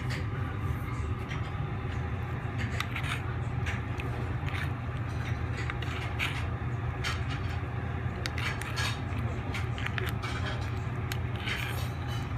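Steady low hum of restaurant room noise, with scattered light clinks and taps of dishes and cutlery.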